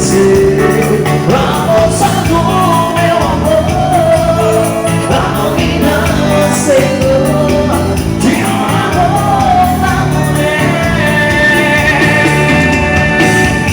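Dance band playing a song, with a steady beat under a melodic lead line.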